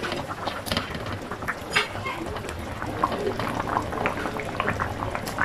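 Soup boiling in a wide pan, bubbling and popping steadily. A few sharper clicks and light plops come as radish slices are dropped into the broth.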